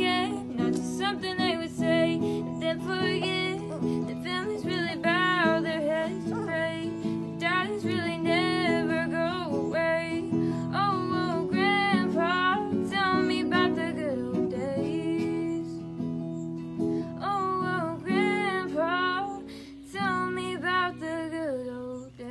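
A woman singing in phrases while playing an acoustic guitar; the voice trails off near the end.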